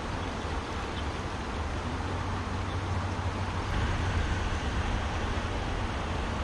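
Steady rush of a fast-flowing river, with a low rumble underneath; it grows a little louder about four seconds in.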